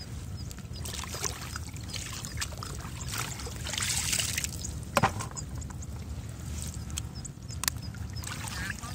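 Muddy water pouring and trickling out through a woven bamboo basket as it is scooped through a shallow rice-field puddle and lifted, loudest about four seconds in. A couple of sharp knocks, the first about five seconds in.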